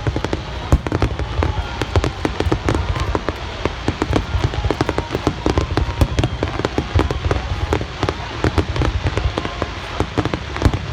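Fireworks display: a dense barrage of aerial shells bursting and crackling, many sharp bangs a second without a pause.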